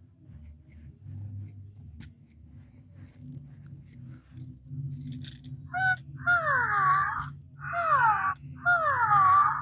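Electronic toy monkey giving a run of about four falling-pitched cries, each just under a second long and about a second apart, starting about six seconds in. Before them only faint handling sounds.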